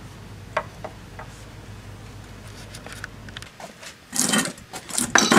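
A few faint clicks of small metal U-joint bearing caps being handled against a wooden board, then loud bursts of rustling, handling noise about four seconds in and again near the end.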